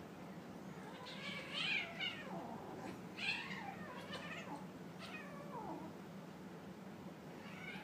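Kittens mewing during a play fight: a string of short high mews, some sliding down in pitch, the loudest about one and a half and three seconds in.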